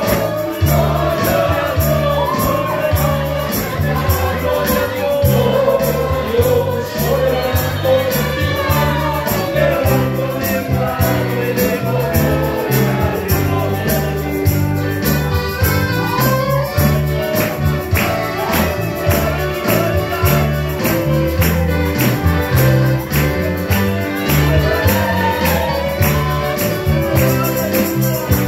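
Christian praise music with singing over a band: a bass line and a steady percussion beat.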